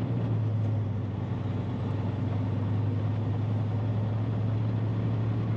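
Diesel engine of a heavily loaded dump truck towing a trailer, heard from inside the cab: a steady low drone with no change in pitch.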